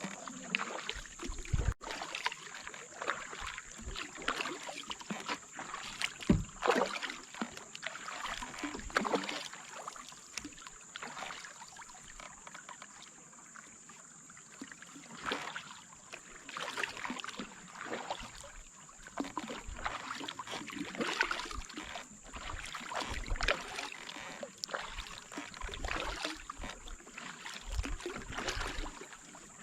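Kayak paddle strokes dipping and splashing in the river, a stroke every second or two, with a quieter lull about halfway through.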